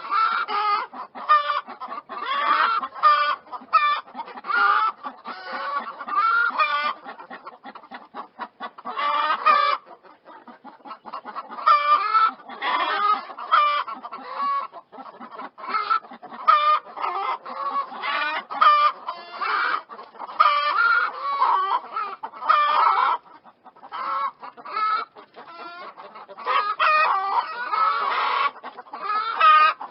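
Chickens clucking continuously, many short calls overlapping, with a lull of a few seconds about a third of the way in.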